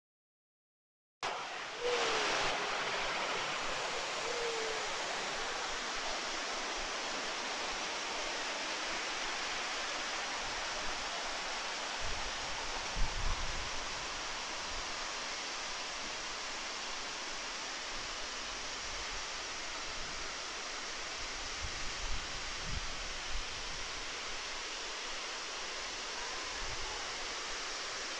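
Large waterfall rushing steadily, a wide curtain of water falling down a cliff into a pool; it starts about a second in after a brief silence. A few low thumps near the middle.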